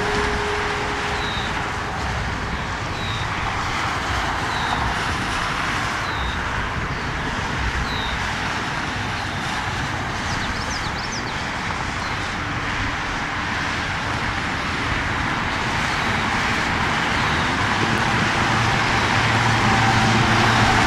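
Jet aircraft engine noise: a steady rushing sound that grows louder over the last few seconds as a whining tone comes in.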